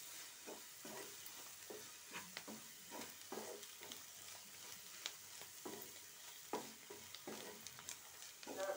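A spatula stirring and scraping frying onion masala around a dark non-stick pan, with a soft sizzle under it. The scrapes and taps come irregularly, about one or two a second.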